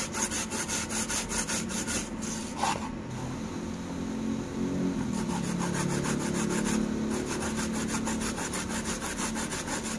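Fresh turmeric root grated by hand on a metal grater: a quick, even rasping of strokes, several a second, with brief lulls about three and seven seconds in.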